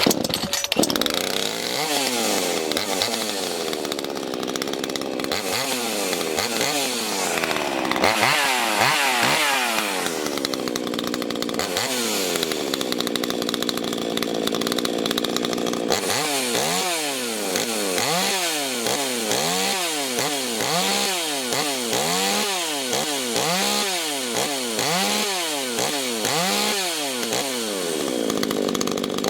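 Ported 42cc two-stroke chainsaw engine running, revved up and down in slow swells and held at high revs for a few seconds at a time. About halfway through it switches to quick repeated throttle blips, about one or two a second.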